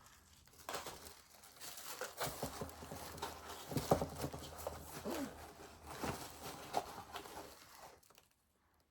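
Packaging rustling and crinkling irregularly as items are handled and taken out of a box, with scattered clicks and taps, stopping about a second before the end.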